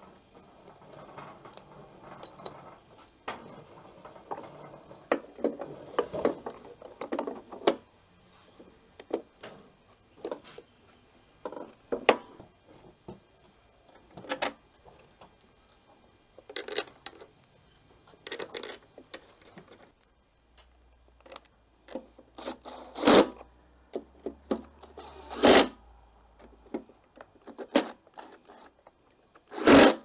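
Clicks, taps and rubbing as the recoil starter assembly of a Victa Power Torque two-stroke mower is fitted back onto the engine by hand, with its new starter O-ring in place. Near the end, a few short bursts of a cordless drill-driver tighten the starter housing's screws.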